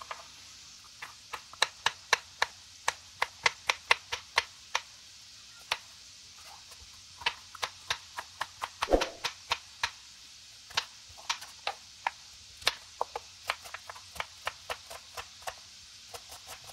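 Kitchen knife slicing bell peppers and then an onion on a wooden cutting board: sharp, quick taps of the blade striking the board in irregular runs of a few a second, with one heavier knock about nine seconds in.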